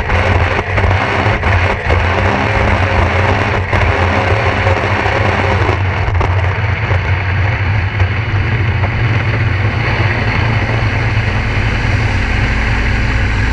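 Sea-Doo RXT 260 jet ski's supercharged three-cylinder engine running at or near full throttle, about 70 mph, with the steady rush of the jet wash and spray behind it. A few brief knocks come in the first few seconds, and the sound shifts slightly about halfway through.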